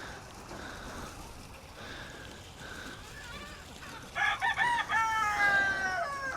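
A rooster crowing once about four seconds in: a few short choppy notes, then one long drawn-out note that sinks slightly in pitch.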